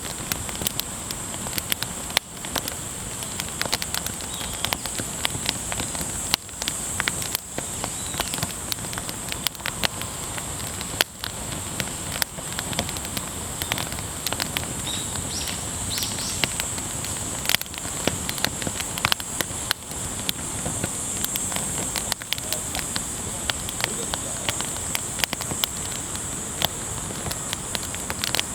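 Firewood burning in a campfire, crackling steadily with frequent sharp pops and snaps over a continuous high-pitched hiss.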